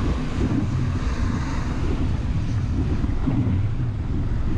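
Wind buffeting the microphone on a moving bicycle: a steady, low rumble.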